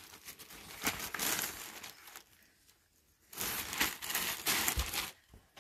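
Clear plastic bag around a packaged rug crinkling as it is gripped and lifted out of a box, in two stretches of rustling with a quieter gap between.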